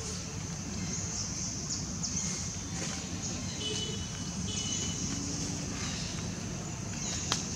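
Forest insect chorus: a steady high-pitched buzzing that swells and fades over a low rumble, with a faint short chirp or two around the middle and one sharp click near the end.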